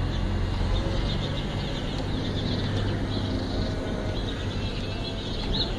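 Huina 1550 remote-control toy excavator's electric motors running steadily, with birds chirping faintly.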